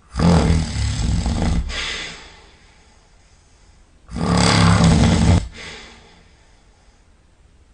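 A person snoring very loudly in deep sleep: two long snores about four seconds apart, the first lasting about two seconds and fading out, the second about a second and a half.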